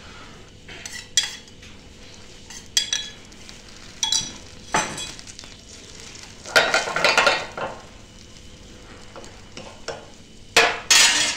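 Garlic and chopped shallots frying in olive oil in a frying pan, with sharp clinks of utensils against the pan in the first half. A louder stretch of sizzling and stirring comes about halfway through, and near the end a metal ladle stirs and scrapes the shallots around the pan.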